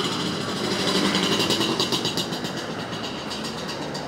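Handheld camera jostled as it is carried: a rapid, rattling clatter of clicks and rubbing on the microphone, loudest between about one and three seconds in, over steady street noise.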